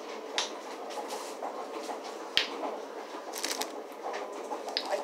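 Handling sounds as candy and its wrapper are picked up and handled: scattered small clicks and light rustling. There is a sharper click about two and a half seconds in and a quick run of clicks about a second later.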